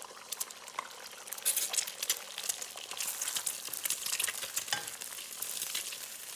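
Two eggs frying in hot oil in a nonstick wok, sizzling, while a wooden spatula stirs and scrambles them with scattered clicks and scrapes. The sizzle grows louder about a second and a half in.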